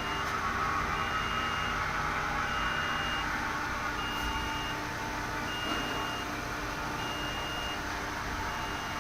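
Electronic beep repeating about every one and a half seconds, each beep a little under a second long, over the steady hum and fan noise of a powered-up Mori Seiki NL3000Y CNC turning center.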